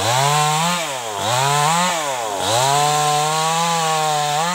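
New West 588 two-stroke chainsaw revved hard three times, its pitch jumping up, holding high and falling back between throttle openings.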